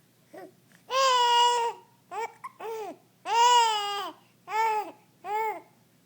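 Young child babbling: a run of about six high-pitched, sing-song syllables, two of them drawn out.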